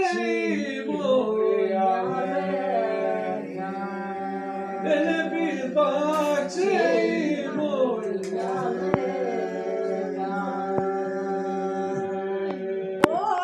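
Unaccompanied Aromanian folk song sung by several voices, with one steady low note held throughout under the moving melody lines. A sharp click near the end.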